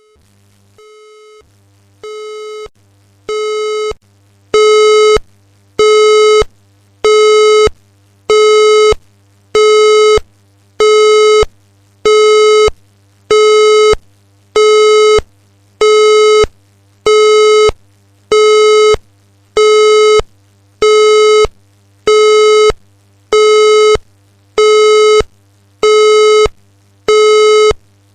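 Australian EWIS fire alarm sounding its alert tone: a low steady-pitched beep repeating about once a second, starting faint and stepping up in loudness over the first few seconds, then holding loud. The alert tone tells occupants to stand by before evacuation.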